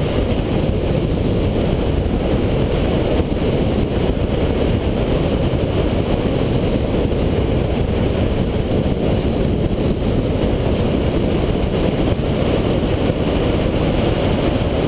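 Car driving fast through an autocross course: a steady, dense low rush of wind and road noise, with no distinct engine note standing out.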